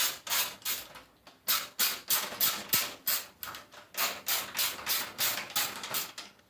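Case-fan screws being backed out with a screwdriver: a rasping click with each turn, about three a second, with a couple of brief pauses.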